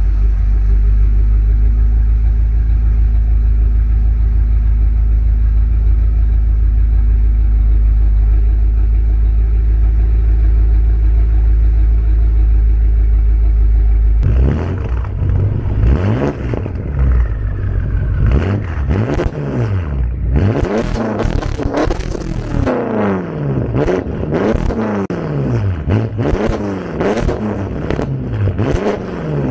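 BMW X6M's twin-turbo V8 through a straight-piped exhaust with no mufflers, idling steadily for about fourteen seconds, then revved again and again, each rev rising and falling in pitch.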